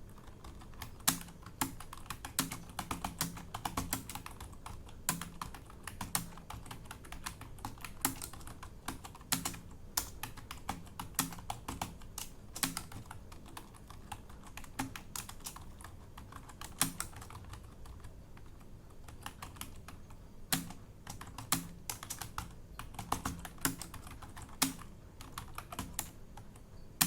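Computer keyboard being typed on at speed, a fast, uneven stream of key clicks with a few louder strokes. It is a timed typing test, typed from a set paragraph.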